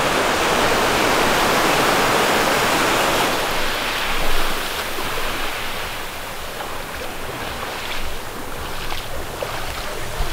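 Sea surf washing onto the beach: a loud wash of a wave over the first few seconds that subsides into a softer, steady hiss of water.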